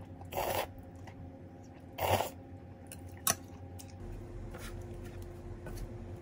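Two short slurps of ramen noodles, then a sharp click of metal chopsticks against the ceramic bowl about three seconds in. After that comes a steady low hum, with faint scrapes of a wooden spatula in a frying pan.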